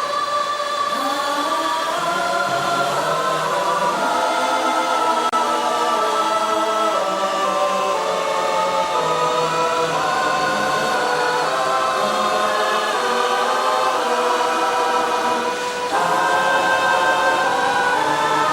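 Background music with sustained choir-like voices holding long chords.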